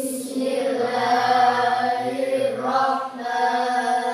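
A class of children reciting an Arabic opening prayer together in unison, chanting in long, drawn-out syllables.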